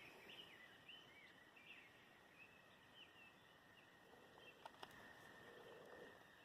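Near silence outdoors, with faint birds chirping throughout over a faint steady high hum, and two faint clicks a little before the five-second mark.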